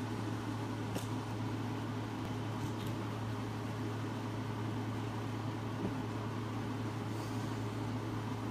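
Steady low hum with an even hiss over it, like a fan or other small machine running, unchanging throughout, with a couple of faint clicks about one and three seconds in.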